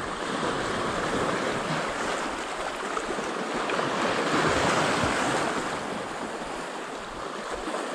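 Small sea waves washing and breaking against a rocky shoreline, a continuous rushing that swells a little midway, with wind on the microphone.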